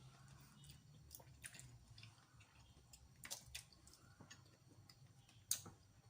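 Faint eating sounds: scattered small clicks and smacks from chewing and from handling boiled seafood by hand, with the sharpest click about five and a half seconds in, over a faint low hum.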